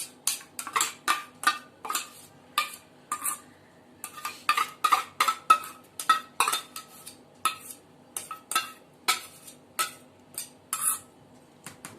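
A spoon clinking and scraping against a bowl as chicken is stirred through a wet marinade: sharp, irregular strokes a few times a second, with a short pause about four seconds in.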